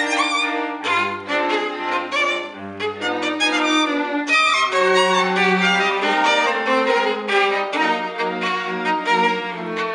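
Small chamber string ensemble of violins playing live, with bowed, sustained melodic lines in several parts. Low notes sound beneath them for the first few seconds, then give way to longer held middle notes.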